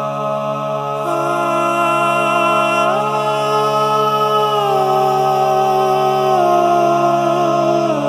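Wordless a cappella harmony singing: several voices holding long notes over steady low notes, with the upper voices gliding to new pitches every second or two.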